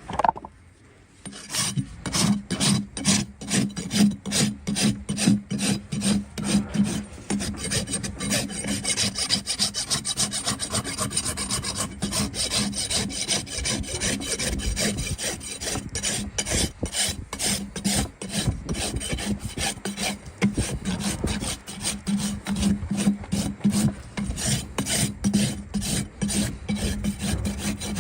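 A farrier's hoof rasp filing a horse's hoof wall in quick, regular back-and-forth strokes, starting about a second in.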